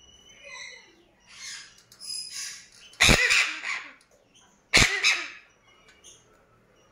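Orange-winged Amazon parrot calling: a few short squeaky calls, then two loud, harsh squawks about three and five seconds in.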